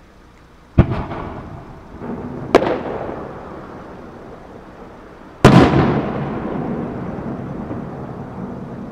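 Three aerial firework shells bursting with loud booms, the third the loudest, each followed by a long rolling echo that fades slowly.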